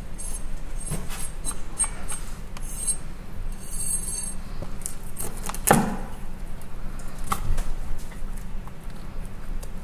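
Kitchen knife cutting into a whole mackerel on a wooden cutting board: scattered small clicks and knocks of the blade, the loudest about six seconds in and another about a second and a half later, over a steady low hum.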